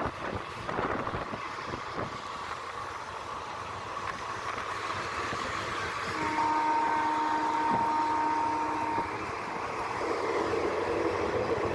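Express passenger train running at speed, heard from an open coach door: steady rail and wheel noise with rushing air. About six seconds in, a steady tone with several pitches sounds for about three seconds over the running noise.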